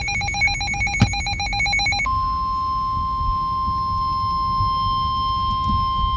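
Emergency Alert System SAME header data bursts, a rapid warbling chirp, stopping about two seconds in. Then the NOAA Weather Radio 1050 Hz warning alarm tone sounds: one steady, unbroken tone that signals the start of a new warning message.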